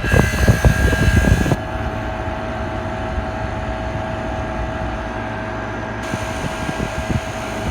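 Philco Noiseless window air conditioner running on high fan as its compressor is switched on: a loud rough clatter for the first second and a half, then a steady hum with a constant tone.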